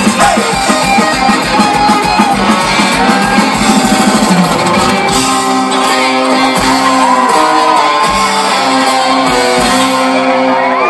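Live country-rock band playing an instrumental passage, guitars over a fast kick-drum beat of about four hits a second. About five seconds in, the band moves to long held chords with sparser drum hits.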